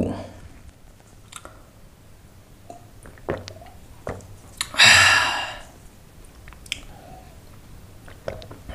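A man drinking from a small plastic bottle of milk: quiet swallowing and small clicks of mouth and bottle, with one loud breathy exhale about five seconds in.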